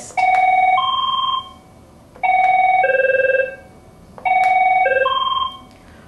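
Avaya IP Office 96-series desk phone previewing its ring patterns through its loudspeaker as they are scrolled through: three short electronic ring tones about two seconds apart. Each is a quick run of two or three beeping notes, and each pattern differs from the others.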